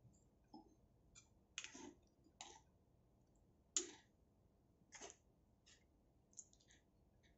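Near silence broken by about eight light clicks and taps of kitchen utensils, scattered and irregular, the loudest about four seconds in.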